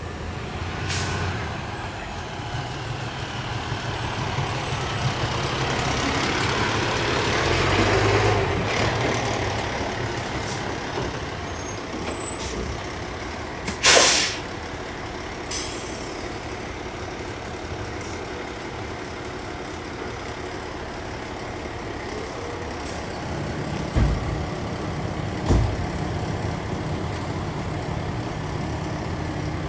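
Fire engine's diesel engine rumbling as it pulls up, then idling steadily. About halfway through comes a sharp, loud hiss of its air brakes being set, with a smaller hiss just after; two short thumps near the end.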